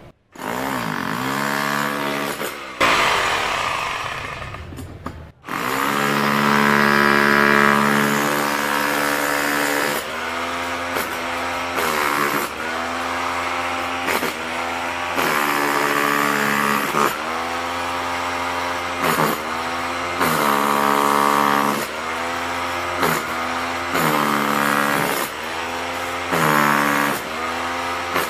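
Corded electric rotary hammer in chisel-only mode (hammering without rotation), its chisel bit breaking up a chunk of concrete. It runs in bursts: a longer run of about four seconds early on, then repeated bursts of one to two seconds, the motor pitch dropping at the end of each.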